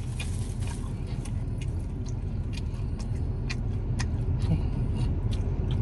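Steady low rumble of a vehicle heard from inside the cabin, with scattered small clicks and crunches of someone eating fried chicken wings.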